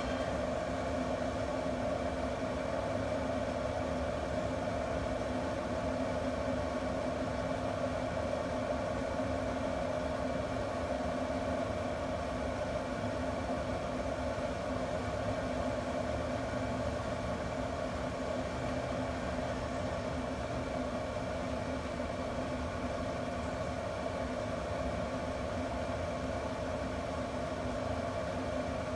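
Camp Chef pellet grill's combustion fan running with a steady, even hum.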